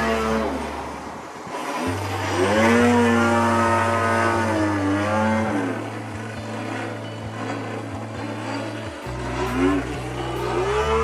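Single-cylinder two-stroke gas engine of a radio-controlled aerobatic plane, running in flight. Its buzz swoops up and down in pitch several times as the plane manoeuvres and throttles.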